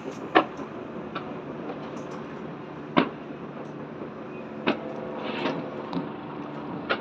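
Distant fireworks going off across a city: several sharp bangs, the loudest about half a second in and about three seconds in, over a steady city hum.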